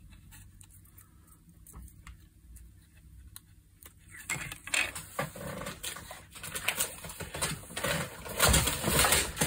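Hand handling of a small circuit board and its wiring: a few faint clicks at first, then from about halfway a busy run of clicks, rubs and taps as a small plastic wire connector is pushed into its socket and the board is set down, loudest near the end.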